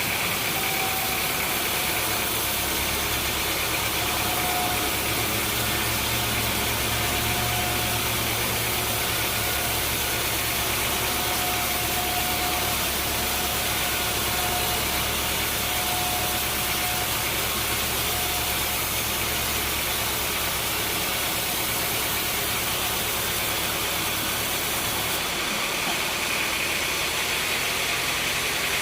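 Sawmill machinery running steadily: an engine or motor hum under a constant mechanical noise. The hum drops out near the end.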